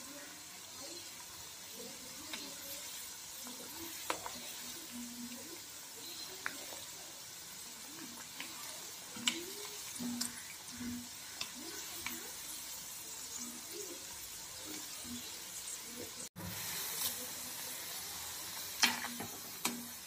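Vegetable pakodas sizzling steadily as they deep-fry in hot oil in a kadai. Scattered sharp clicks come from a metal slotted spoon knocking against the pan as the fritters are turned.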